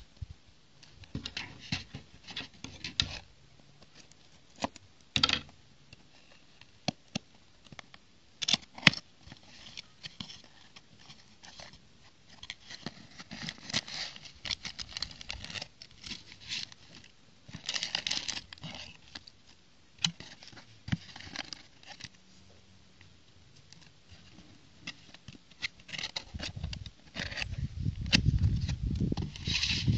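A small cardboard toy box being opened and handled, with its sealed plastic bags of bricks crinkling: scattered clicks and rustling crinkles, and a low rumble near the end.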